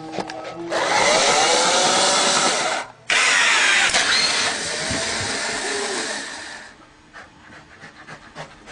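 A loud electric motor, like a power tool or appliance, running in two long runs: about two seconds, a brief stop, then about three and a half seconds before it cuts out.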